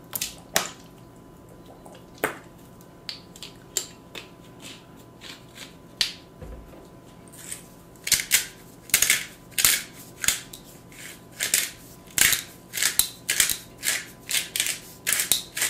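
Hand-held pepper grinder being twisted over a bowl: a rapid run of sharp clicks from about eight seconds in. Before that, only a few scattered clicks and taps.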